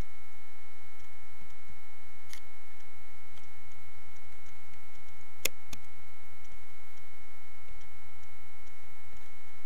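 Steady electrical hum and hiss from a computer recording setup, with a few sharp clicks, the loudest about five and a half seconds in.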